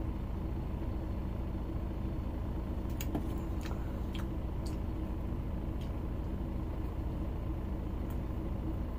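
A coach's engine idling steadily, heard from inside the passenger cabin, with a few faint light clicks now and then.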